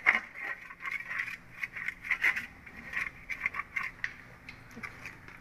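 Perforated metal gathia jhara being rubbed and scrubbed by hand with dry flour to clear stuck dough from its holes: irregular scratchy scraping strokes that thin out near the end.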